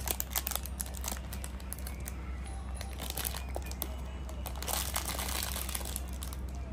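Clear plastic packaging bag crinkling irregularly as a small child's fingers pick and pull at it to open it.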